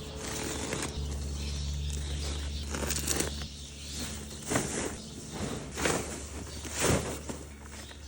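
A skid steer's engine runs steadily with a low hum, while short rustling swishes come and go several times over it.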